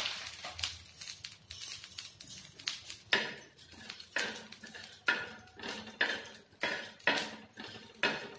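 Metal spatula scraping and tapping on an iron tawa, stirring whole coriander seeds, cumin and dried red chillies as they dry-roast. The strokes are irregular at first, then run at about two a second from about three seconds in.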